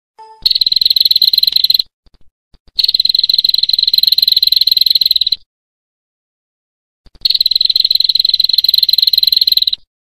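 A high, rapidly pulsed buzzing trill from a masteran (songbird training) recording. It comes in three long bursts with short silences between them.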